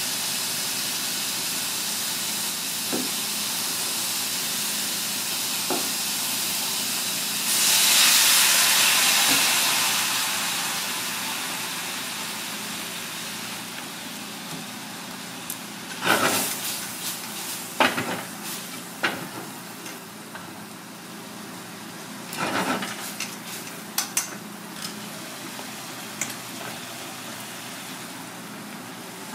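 Clams and vegetables frying in a wok over a gas burner: a steady sizzle, then a loud burst of hissing about seven seconds in as liquid hits the hot pan, slowly dying down to a bubbling simmer. Later comes a run of sharp knocks and clatters of the chopsticks against the wok.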